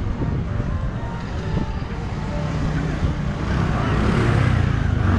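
Motor scooter engine approaching and passing close by, growing louder over the last couple of seconds, over the hum of street noise.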